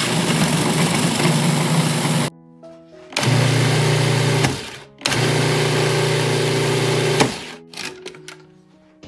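Food processor motor run in three bursts of one to two seconds each, its blade whirring through graham cracker crumbs and chunks of butter to mix a crumb crust. A few light clicks near the end as the lid comes off the bowl.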